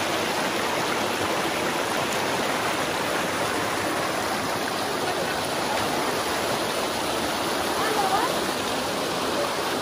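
Steady rush of flowing water in a wadi, a stream or falls running over rock.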